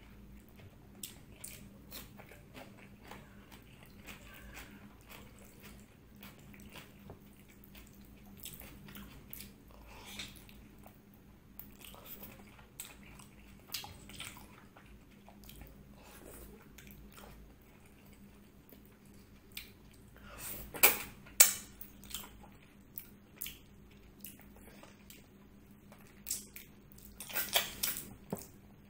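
Close-miked eating: a person chewing mutton paya (goat trotter curry) and rice eaten by hand, with wet mouth sounds and many small clicks. Louder clusters of bites come about two-thirds of the way through and again near the end.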